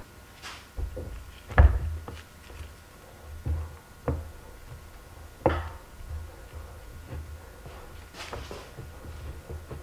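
A few separate knocks and clunks of a metal hand injector and mold being handled on a workbench, the loudest about one and a half seconds in, over a low steady hum.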